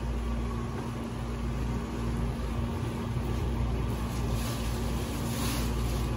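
Large pot of papaitan broth boiling on a stove: a steady low rumble with a faint constant hum.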